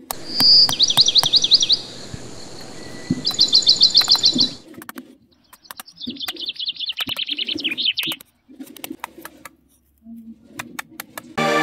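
A bird singing three fast trilled phrases, each a second or two long, with scattered sharp clicks underneath.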